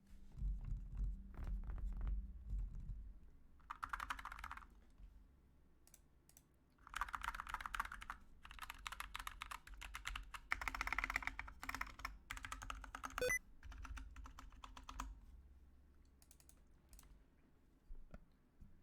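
Custom mechanical keyboard with Gateron Black linear switches being typed on in fast bursts of keystrokes, broken by short pauses, with lighter scattered key presses toward the end.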